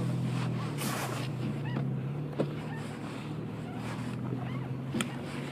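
A vehicle engine running steadily with a low hum, with a few faint clicks.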